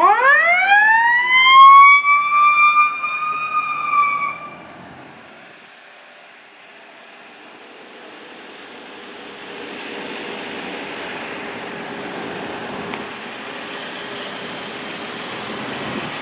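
A fire department paramedic squad truck's siren winds up, rising in pitch over about two seconds and holding steady, then fades out about four seconds in. After a quieter stretch, steady engine and road noise from approaching fire apparatus builds from about ten seconds in.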